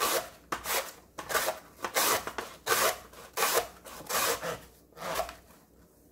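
Korean radish being julienned on a plastic mandoline slicer with a serrated julienne blade: repeated rasping scrapes, about two strokes a second, as the radish is pushed across the blade. The strokes stop about five seconds in.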